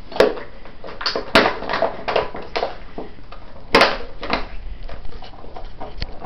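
An empty plastic water bottle crackling and clattering as a dog bites and bats it around: a run of irregular sharp crinkles and knocks, the loudest near the start, about a second and a half in and about four seconds in.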